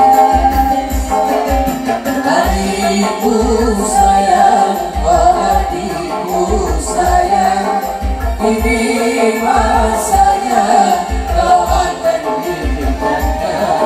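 Malay dendang song sung by a mixed group of men and women over amplified band accompaniment with a steady low beat.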